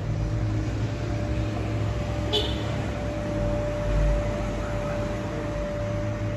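Steady low rumble of city street traffic with a steady mechanical hum over it, and a single short click about two seconds in.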